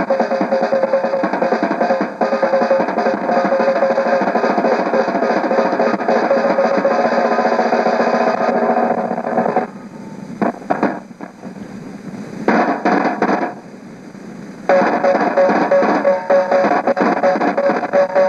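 Drum roll on a snare drum and tom-tom: a fast, unbroken run of strokes over a steady ringing drum tone. Past the middle the roll falls away for about five seconds, with a couple of short bursts, then comes back at full level.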